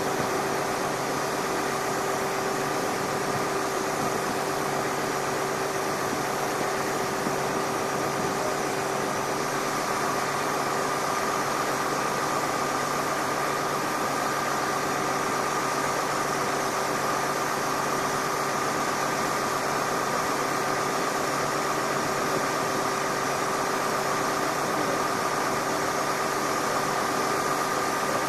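Steady machine hum: a constant drone with a few held tones over an even hiss.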